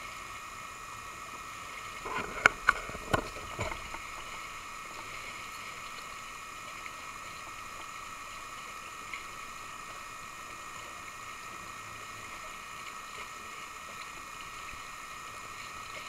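Steady hiss of sea water around a kayak, broken about two seconds in by a short burst of splashes and sharp knocks, the loudest two in quick succession.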